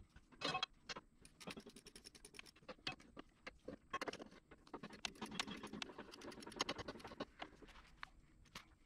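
Irregular light metallic clicks and taps of a wrench on the rear wheel bearing hub bolts as they are started and worked in by hand.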